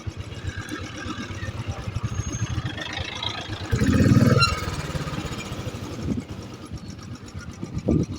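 Royal Enfield motorcycle engine running on the move, with a low, fast pulsing beat and a louder surge of engine sound for about a second near the middle.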